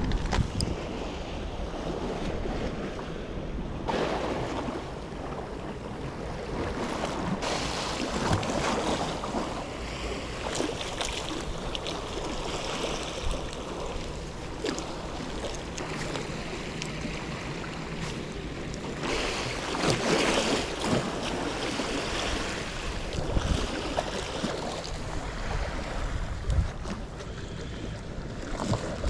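Strong wind buffeting the microphone over waves washing against the shore, a steady rushing noise with a low rumble that swells in several gusts.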